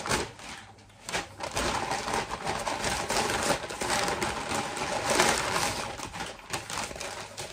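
Brown paper grocery bags rustling and crinkling as they are handled and opened, in a run of irregular crackles that fades near the end.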